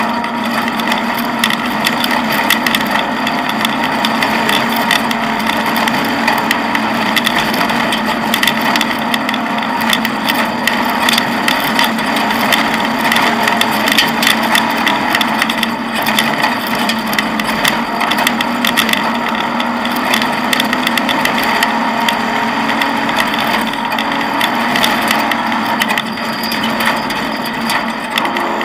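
Cabin noise inside an off-road rally car driving on a dirt track. The engine runs steadily under constant rattling and clattering from the car's body and fittings over the rough surface.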